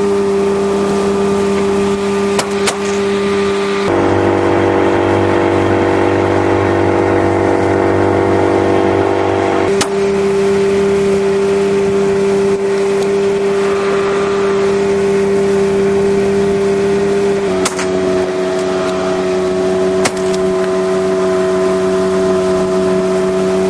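Speedboat engine running steadily at speed, with water rushing along the hull. The engine note holds steady, then shifts to a different pitch a few times.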